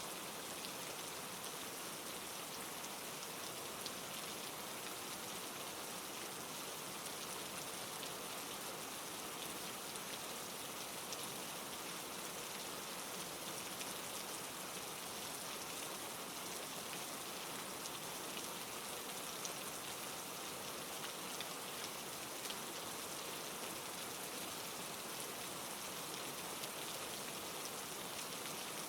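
Steady rain falling on a surface, an even hiss with faint scattered drop ticks and no thunder.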